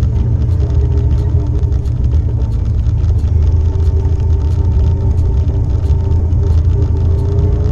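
Four-wheeler (ATV) engine running while riding along a dirt trail: a loud, steady low rumble with the engine note drifting slightly up and down, and scattered sharp ticks.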